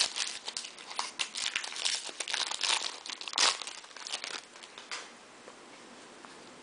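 Foil wrapper of a Bowman jumbo baseball card pack being torn open and crumpled by hand: a dense run of crinkling and tearing, loudest about three and a half seconds in, that stops about five seconds in.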